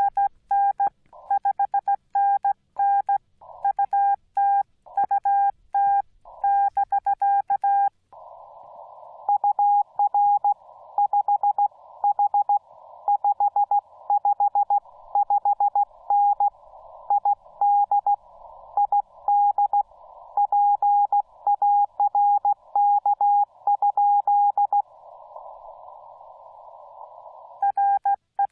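Morse code from a Yaesu FT-891 ham radio: a single tone keyed in dots and dashes. For the first eight seconds and again near the end the tone is clean, the operator's own sending heard as sidetone. In between it sits in a band of hiss, a station answering, heard through the receiver's narrow CW filter.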